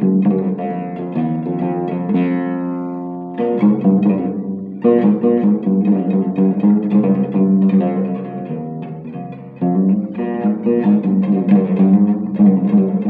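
Long-necked lute played solo, plucked in quick repeated notes of a folk melody. About two seconds in the playing settles on held, ringing notes before resuming, and there is a short lull just before ten seconds, after which the quick plucking returns.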